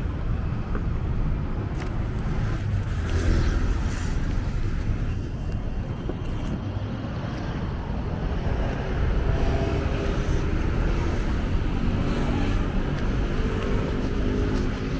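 City road traffic: cars passing on a multi-lane road, a steady low rumble of engines and tyres. In the last few seconds, a nearby engine's steady hum rises above the rumble.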